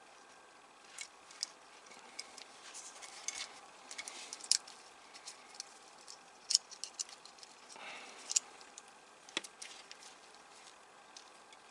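Light, irregular clicks and taps of plastic model parts and wiring being handled with gloved hands, with a few sharper clicks now and then.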